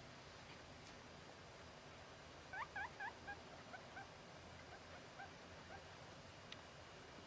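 Guinea pig whistling (wheeking): a quick run of short, high, upward-sliding squeaks, three loud ones about two and a half seconds in, then several fainter ones trailing off.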